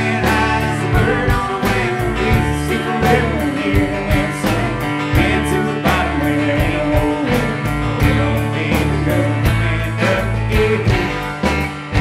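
Live band music with a steady beat: strummed acoustic guitar, upright bass and electric guitar over drums, in an instrumental passage of a country-folk song.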